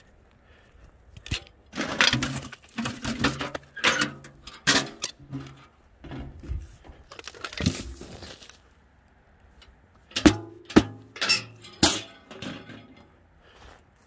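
A galvanized metal bucket of wood-stove ash clanking and knocking while it is carried and emptied, with footsteps on gravel. The sharp knocks come in two clusters, the second about ten seconds in.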